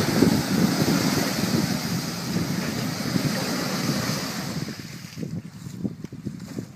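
Wind rushing and buffeting the microphone, dying down about five seconds in.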